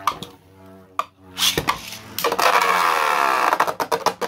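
3D-printed Beyblade spinning tops clattering and whirring in a plastic Beyblade stadium. There are a few sharp clicks in the first second and a half, then about two seconds of loud scraping and whirring whose pitch slides downward.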